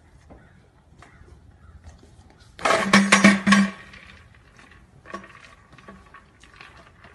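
Young goat bleating once, a loud, quavering call about a second long beginning between two and three seconds in; a shorter, fainter bleat follows about two seconds later.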